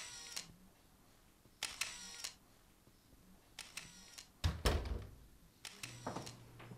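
Camera shutter clicks: a pair at the start and another pair about two seconds in, more clicks later, then a heavy low thump about four and a half seconds in, the loudest sound. A low steady hum starts near the end.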